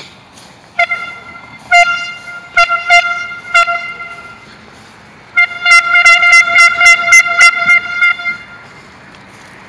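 Air horn blasting one high, steady pitch: a few separate loud toots in the first four seconds, then a quick run of short toots, about five a second, for about three seconds.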